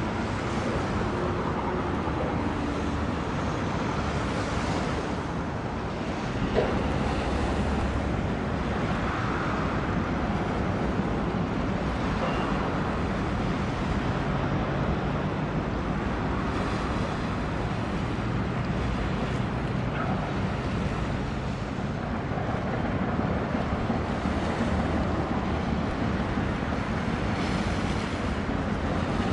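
Wind buffeting the microphone over the wash of waves on the water, with a low steady rumble underneath as a container ship passes.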